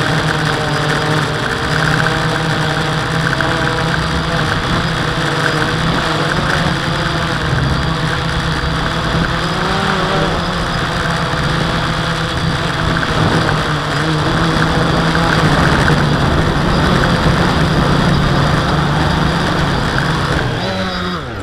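WLtoys V303 Seeker quadcopter's motors and propellers buzzing steadily, heard up close from the drone's own camera, the pitch wavering as the motor speeds change in flight. Near the end the pitch slides down and the sound fades as the motors spin down on landing.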